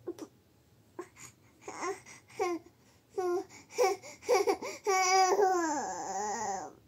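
Baby fussing: short whimpers that build into one long wavering cry, falling in pitch at the end. Her mother takes it for put-on crying to get attention.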